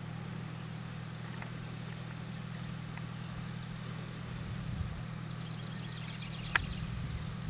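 Hands working a tripod-mounted telescoping vertical antenna, with a single sharp click near the end, over a steady low hum.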